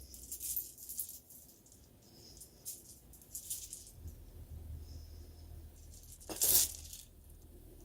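Beads and costume jewelry lightly clicking and rattling as a beaded necklace is handled, with a louder rustling clatter about six and a half seconds in.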